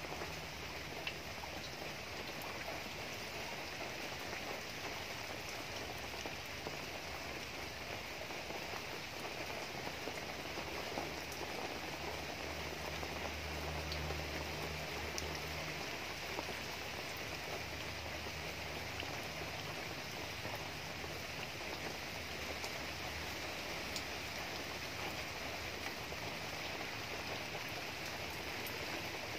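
Steady rain falling on trees, leaves and grass, with a few single drops ticking close by.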